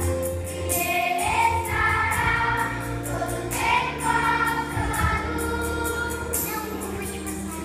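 Children's choir singing a Christian song together over instrumental accompaniment with a steady low bass line.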